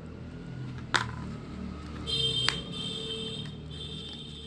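Small screwdriver and plastic fan handle being worked: a sharp click about a second in and another just after the middle, over a low hum. From about two seconds in a high steady whine sounds.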